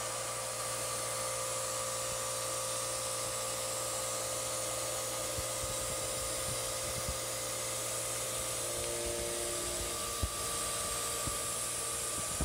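CNC milling machine spindle running a 3/4-inch ball-nose finishing cutter on a light finishing pass in pre-hardened 4140 steel: a steady whine over a steady hiss, with a few faint ticks in the second half.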